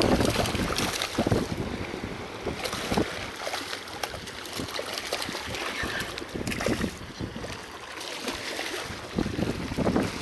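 Wind buffeting the microphone, with small waves lapping and splashing against shoreline rocks. The wind is strongest at the start and eases about a second in, leaving irregular splashes.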